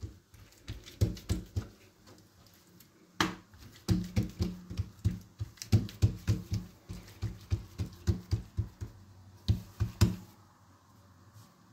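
Hands patting and pressing a stuffed, folded square of msemen dough flat on a floured work surface: a run of soft slaps and thumps, several a second, with a couple of short pauses.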